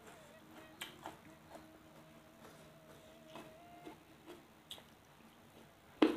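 Quiet eating sounds: soft scattered mouth clicks and small taps while food is picked up and chewed, over a faint steady hum, with one sharp smack near the end.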